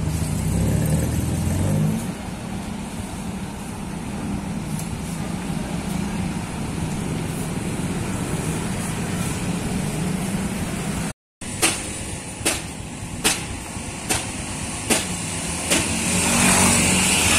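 Street traffic: a vehicle's engine close by at first, then steady engine and road noise of passing cars and motorcycles. After a short break, a run of sharp knocks comes a little more than once a second.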